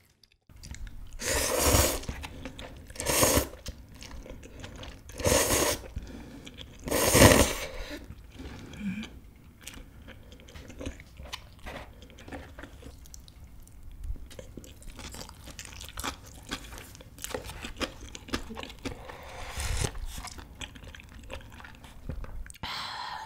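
Ramen noodles slurped into the mouth four times in the first eight seconds, then chewing with soft wet mouth clicks.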